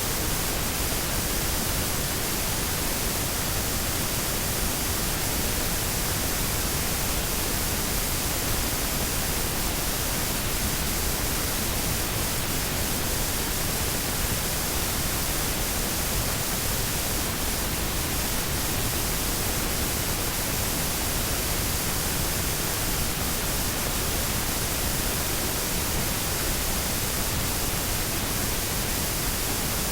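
Washing machine running with a steady, even rushing hiss that does not change in level or pitch.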